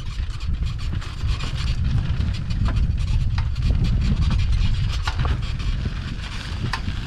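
Bicycle being ridden along a rough forest track: wind buffets the microphone in a steady low rumble, with many small rattles and clicks from the bike.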